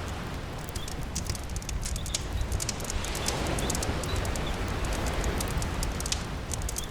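Campfire crackling with frequent sharp pops over a steady wash of rain and sea surf.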